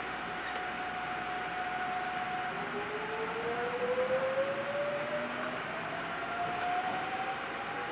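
Electric train's inverter and traction motors whining as the train accelerates: a steady tone, then from about a third of the way in a second tone that climbs smoothly in pitch as the train gathers speed.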